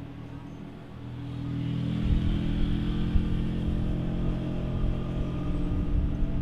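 A low, steady droning rumble with several held tones, growing louder between about one and two seconds in and then staying loud.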